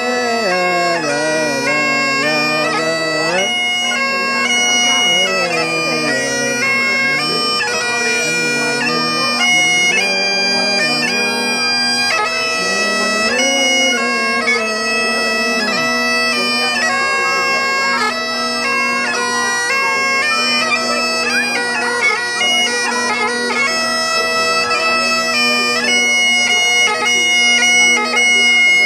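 Great Highland bagpipe played continuously: the steady drones sound under the chanter's stepping melody.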